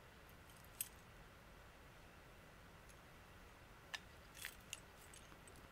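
Near silence with a few faint, sharp clicks of camping gear being handled: one about a second in and a small cluster near the end.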